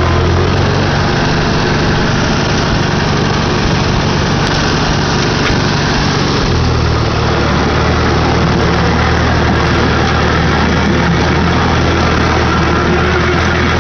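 Farmall Super A tractor's four-cylinder engine running steadily while the tractor is driven, with a slight change in its low note about six and a half seconds in.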